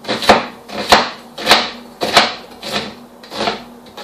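Kitchen knife slicing an onion into thin slivers on a wooden cutting board: a steady run of cuts, about three every two seconds, each a short crunching slice through the onion ending in a knock of the blade on the board.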